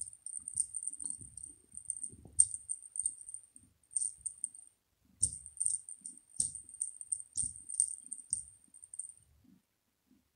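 Small bell inside a toy ball on a rubber band jingling as the ball is jiggled, in irregular bursts with short pauses and soft low bumps from the ball. The jingling stops about nine seconds in, with one faint jingle near the end.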